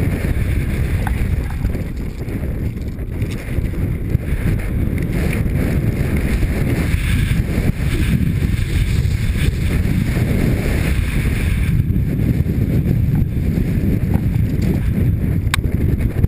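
Wind rushing over a helmet-mounted camera's microphone during a fast mountain-bike descent, mixed with tyre noise from loose rock and gravel. A single sharp click comes near the end.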